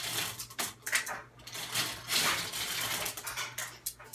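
Small plastic play-food pieces rattling and clattering in a plastic toy bowl as they are stirred and handled, with a scatter of sharp clicks.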